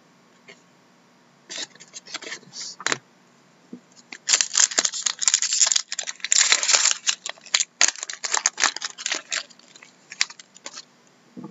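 Foil trading-card pack crinkling and being torn open by hand. Scattered crackles start about a second and a half in, the densest and loudest crinkling comes from about four to seven seconds in, and it thins to lighter crinkles as the cards are pulled out.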